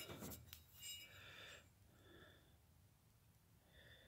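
Near silence: room tone, with faint handling noises in the first second or so that fade out.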